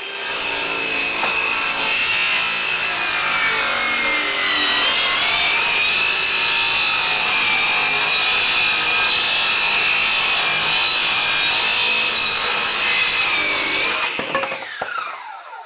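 Ryobi brushless cordless circular saw cutting through an old painted door: a steady high whine with the rasp of the blade in the wood, its pitch sagging briefly under load about five seconds in. Near the end the cut finishes, the trigger is released and the motor winds down with a falling whine.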